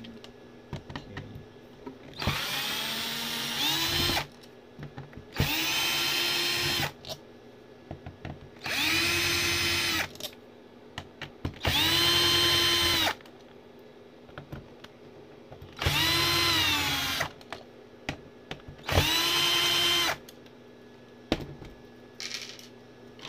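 Electric drill-driver backing out the screws from the bottom of an audio interface's plastic case, in six short runs of one to two seconds. Each run starts with a rising whine as the motor spins up and then holds a steady whine, with small clicks in between as the bit is moved from screw to screw.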